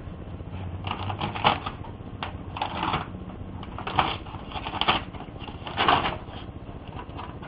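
Printer running, its mechanism clattering and whirring in repeated short bursts over a low hum, with several sharper clacks.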